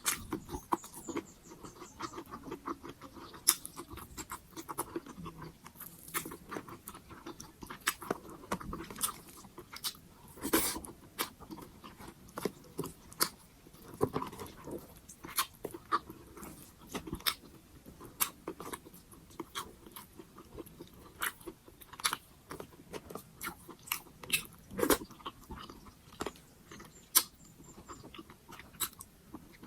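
Close-miked eating of pork sinigang: chewing with wet mouth smacks and clicks, coming irregularly throughout.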